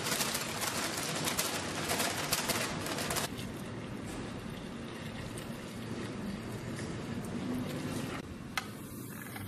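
Flour pouring into a stainless steel mixer bowl, a dense crackly hiss that stops about three seconds in. Then water pouring from a jug onto the flour in the bowl, a softer steady splash, with a single click near the end.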